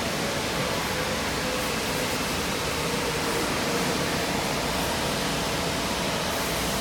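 Steady noise of running machinery in a steel fabrication shop: an even rushing sound with a faint hum, unchanging throughout.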